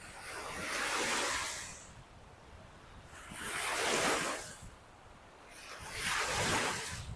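Lake Michigan waves breaking on the beach: three washes of surf, one about every two and a half to three seconds, each swelling and fading away.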